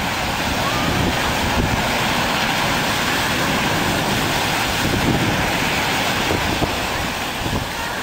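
Heavy storm surf breaking and rushing up a slipway: a steady, dense wash of water noise, with wind buffeting the microphone.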